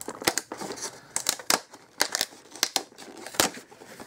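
Cardboard collection box with a clear plastic blister window being handled and opened: irregular sharp clicks and crinkles of card and plastic.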